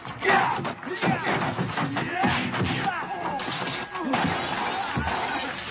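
Movie fight sound effects: glass shattering and things smashing, with a rapid run of blows and crashes. Film score runs underneath.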